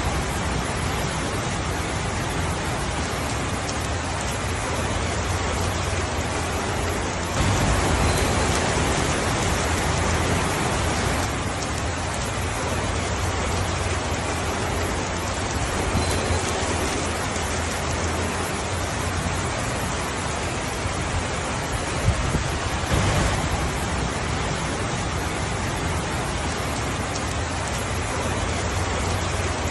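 Steady rainfall: an even hiss of falling drops with a low rumble underneath. It swells a little heavier about seven seconds in for a few seconds, then settles back.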